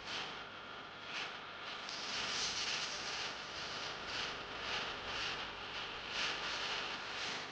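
Pork tocino and chicken burger patties sizzling in a frying pan, a steady hiss that swells and eases every second or so.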